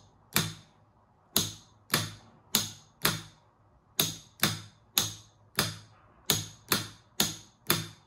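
12V solenoid door lock clicking about a dozen times, in quick, uneven succession, as its power lead is touched on and off. Each click is the lock's rod being pulled in when powered or springing back out when the contact is released.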